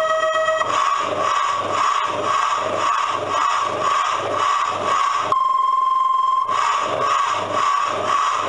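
Red steam-engine coin-operated kiddie ride playing its steam-train sound effect: a steady chuff-chuff rhythm of about two to three chuffs a second. A whistle toot ends about half a second in, and another single-pitched toot of about a second sounds about five seconds in.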